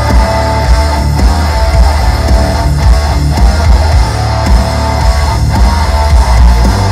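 Heavy metal song playing loud, with distorted electric guitars over a dense, pounding low end of bass and drums.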